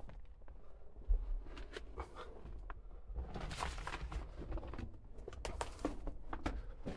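Footsteps in an abandoned gold mine tunnel: an irregular run of short scuffs and knocks.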